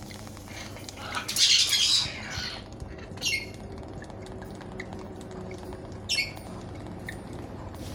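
Galah cockatoo squawking: a harsh screech about a second and a half in, then two short calls falling in pitch, around three and six seconds in.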